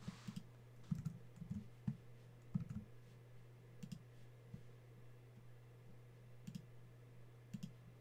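Faint, scattered computer mouse and keyboard clicks, in a few small clusters, over a steady low hum.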